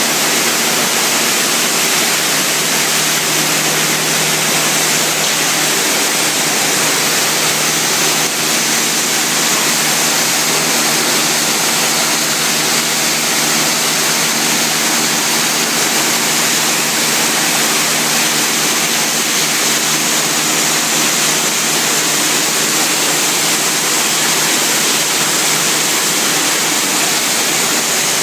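Waste plastic washing machine running: a loud, steady rush of water and machinery with a low steady hum under it.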